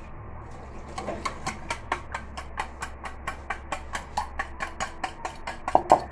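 Eggs and oil being beaten by hand in a steel bowl, the utensil clicking rapidly against the bowl's side at about four to five strokes a second, starting about a second in, with a few louder knocks near the end.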